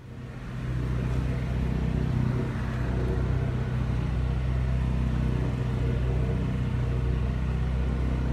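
Motorized toy cranes running, giving a steady low drone that builds up over the first second and then holds even.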